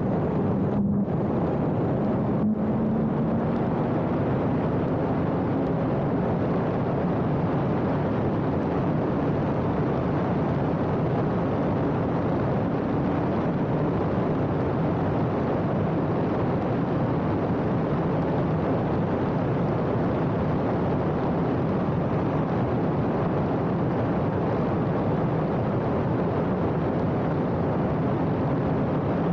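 Radical race car at speed, heard from on board: its engine runs hard under heavy wind and road rush. The engine note climbs steadily over the first few seconds, with two very brief cuts in the sound early on.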